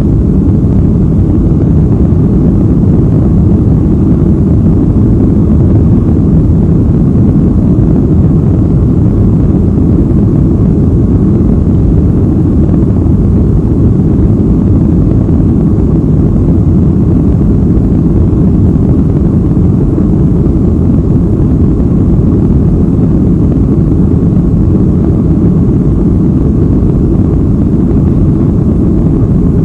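Boeing 737-800's CFM56-7B turbofan engines at takeoff power during the takeoff roll, heard from inside the cabin as a loud, steady, low rumble mixed with runway noise.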